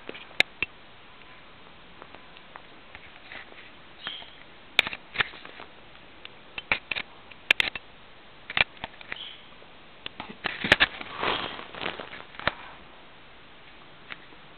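Baby fuzzy lop rabbits moving about on a satin bedspread: scattered light clicks and short rustles, with a longer rustle about eleven seconds in.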